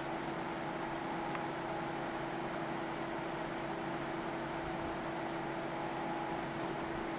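Steady room tone: an even hiss with a constant low hum, unchanged throughout, and a faint tick or two.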